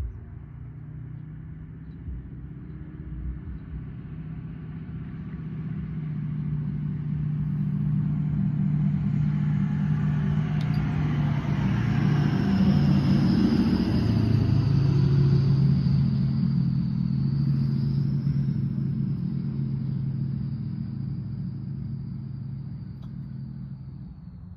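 A vehicle passing by: a low engine hum swells over several seconds, drops a little in pitch as it goes past about halfway through, and fades away, with a faint high whine above it.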